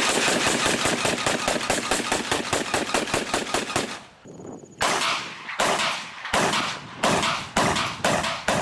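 Automatic gunfire: a rapid burst of shots lasting about four seconds, followed after a short pause by a string of about seven single shots, each with a ringing tail, coming slightly faster toward the end.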